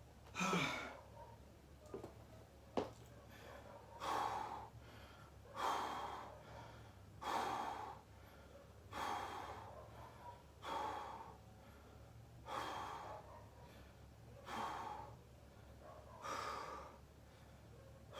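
A man breathing hard to recover from a set of burpees, one deep, loud breath about every second and a half to two seconds. A couple of sharp clicks come in the first three seconds.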